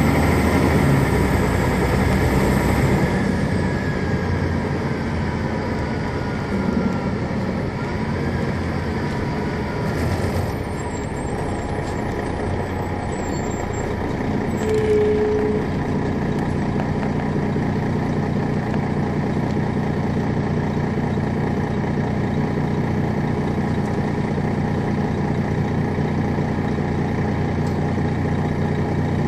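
Detroit Diesel Series 60 diesel engine and Allison B500 automatic transmission of a 2001 MCI D4000 coach, with a falling whine over the first several seconds as the bus slows. A short tone comes about halfway, then the engine settles into a steady idle.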